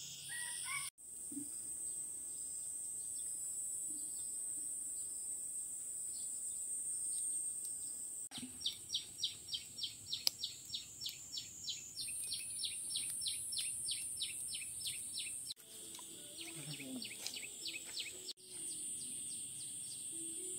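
A steady, high-pitched insect drone, with a rhythmic chirping call repeating about three times a second for several seconds in the middle. The sound drops out abruptly a few times.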